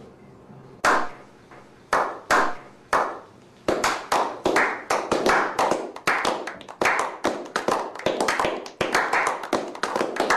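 Hand clapping: a few slow, spaced claps, then faster, steady clapping from about four seconds in.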